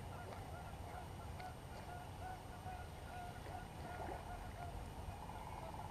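Faint geese honking: a run of short, repeated honks over a low steady rumble.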